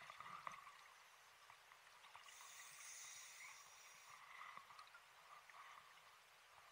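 Faint underwater sound of a scuba diver's regulator breathing, picked up by the dive camera: a soft hiss from about two seconds in that lasts about two seconds, over faint bubbling and small clicks.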